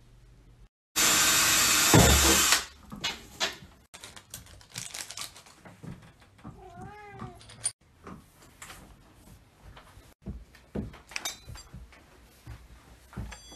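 A short burst of loud hissing noise about a second in, then about halfway through a cat meows, one short call that rises and falls in pitch several times.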